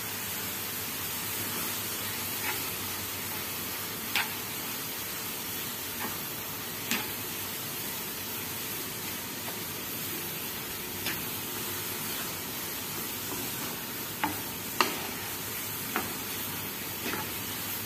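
Grated carrots and sugar sizzling in ghee in a frying pan, a steady sizzle, while a wooden spatula stirs them, knocking against the pan about eight times at irregular intervals.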